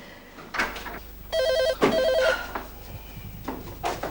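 Telephone ringing: one British-style double ring, two short bursts of a warbling electronic trill about a second and a half in.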